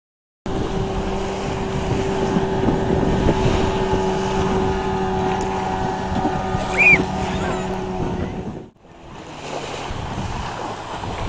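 Outboard motor of a mini speed boat running steadily at full speed, with wind on the microphone and water noise. A short high squeak comes about two-thirds of the way through. Near the end the sound cuts out for a moment, then wind and waves dominate with the motor fainter.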